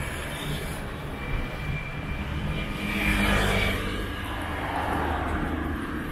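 Engine drone of a passing vehicle, swelling to its loudest about three seconds in and easing off after.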